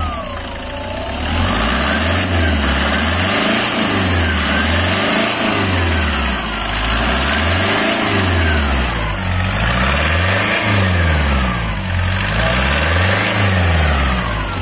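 Toyota Hiace engine being revved up and down repeatedly, a rev about every second and a half, with the revs easing off between blips.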